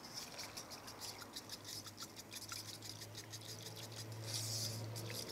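Bamboo matcha whisk brushing rapidly back and forth in a matcha bowl, a faint, fast scratchy swishing as the powdered tea is whisked with water.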